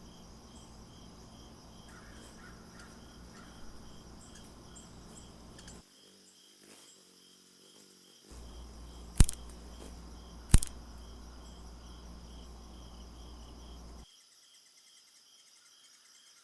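Crickets chirping in a steady, even pulse, with two sharp loud cracks about nine and ten and a half seconds in.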